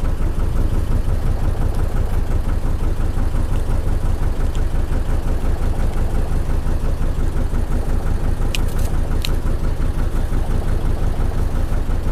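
Fishing boat's engine idling steadily with a dense, even, rapid throb. A few sharp clicks sound about eight and a half seconds in.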